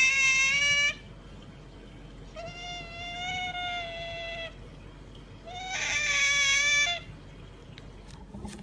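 An animal giving three long, drawn-out, high-pitched cries. Each holds a nearly steady pitch for one to two seconds, with short gaps between them.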